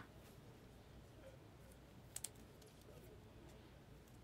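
Near silence: room tone with a low hum, broken by two faint clicks close together about two seconds in.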